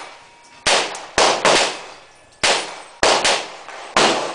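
Gunfire at an outdoor range: about seven shots in quick, irregular succession, each trailing off with echo.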